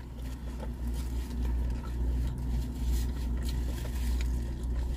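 Steady low hum of a parked car heard from inside the cabin, with a few faint clicks.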